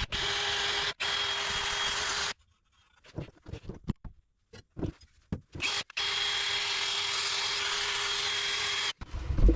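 Handheld power tool running steadily with a fixed whine, cleaning up an exhaust sealing surface so the new gasket will seal. It runs for about two seconds, stops for about three and a half seconds with only small scraping and handling noises, then runs again for about three seconds.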